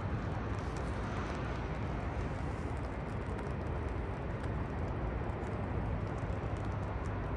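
Steady rainy-day city noise: a low, even rumble of traffic with a constant hiss of rain and faint scattered ticks of drops.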